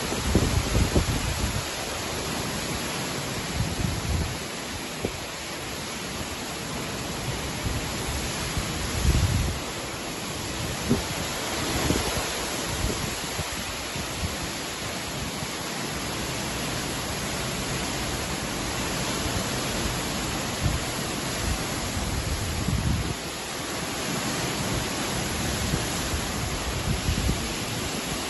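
Hurricane rain falling hard, a steady hiss. Gusts of wind buffet the microphone with low rumbling surges every few seconds.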